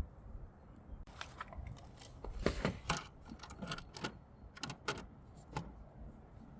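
Light clicks and knocks of parts being handled, irregular, about a dozen over several seconds; no saw motor running.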